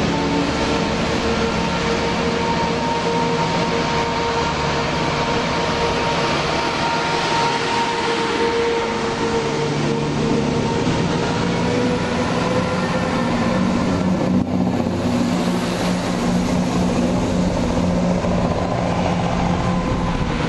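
Class 170 Turbostar diesel multiple unit moving past under power, its underfloor diesel engines and transmission giving a steady droning whine that edges slightly up in pitch about halfway through.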